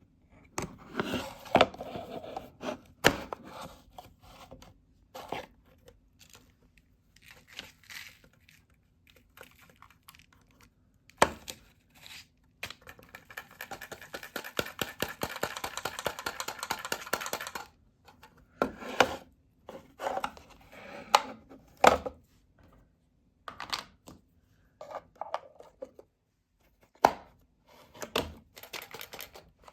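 Paper rustling and tearing in irregular bursts, with sharp clicks and knocks, and about five seconds of dense crackling near the middle.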